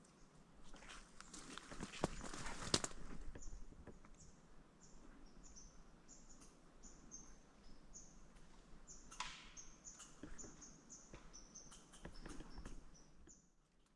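A small bird's short, very high chirps, repeated every half second or so, over a quiet woodland background. About a second in, a few seconds of louder rustling with sharp clicks, the loudest sound here.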